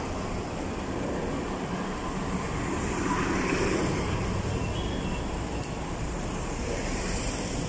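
Steady street traffic noise with vehicles driving past close by, one passing near the middle.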